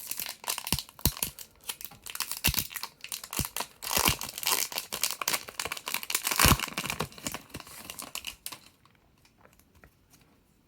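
Foil wrapper of a Pokémon trading card booster pack crinkling and tearing as it is opened by hand, in a run of irregular crackles and rustles that stops well before the end.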